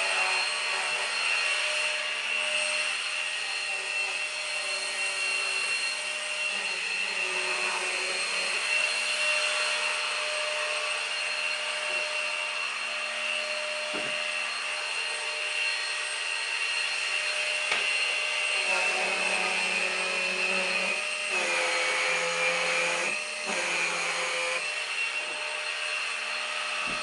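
Numatic Henry Quick cordless stick vacuum running continuously over a sofa, with a steady high motor whine. Lower tones shift in pitch several times as the head is worked over the cushions, and there are two light knocks midway.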